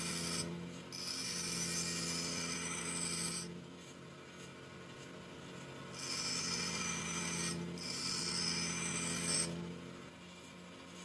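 Grinder grinding a U-shaped groove into a hardened bearing-steel plate in two passes of a few seconds each, a rasping hiss. Between the passes it drops back to the steady hum of the motor.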